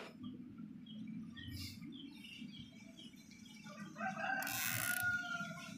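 A rooster crows about four seconds in, a single held call of about a second and a half, over faint handling noise from hands threading a plastic cable tie.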